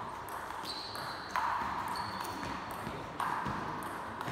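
Table tennis rally: a celluloid ball being struck back and forth, a series of sharp pings and clicks off the bats and table, about one a second, ringing in the large sports hall.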